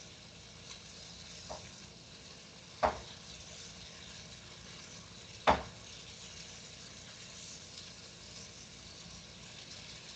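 Breaded chicken frying in oil: a steady sizzle with faint crackles. Two sharp knocks come about 3 seconds and 5.5 seconds in, the second the louder.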